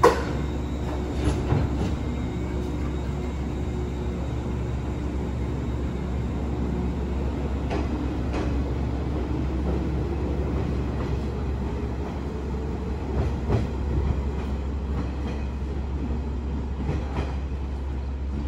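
JNR-era electric commuter train pulling out of a station: a steady motor hum that rises slightly as it gathers speed. Now and then a wheel clicks over a rail joint.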